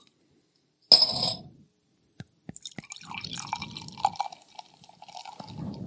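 A short sharp sound about a second in and a few light clicks, then beer being poured from a bottle into a glass for about three seconds.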